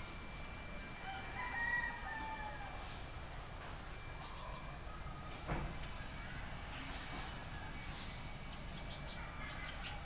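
A rooster crows once about a second in, over a steady low hum, with a single sharp knock about halfway through.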